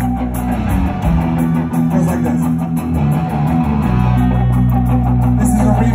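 Live rock band playing loud electric guitars and bass with drums, holding chords that change about a second in and again near four seconds in. It is heard from within an arena crowd.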